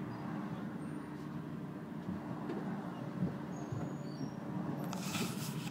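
City bus running, heard from inside the passenger cabin: a steady low rumble of engine and road with a constant hum. Near the end comes a short rush of hiss.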